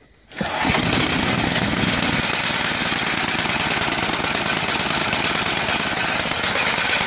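Craftsman snowblower's gas engine pull-started with the recoil cord, catching on the first pull about half a second in, then running steadily just below full throttle with the choke set halfway.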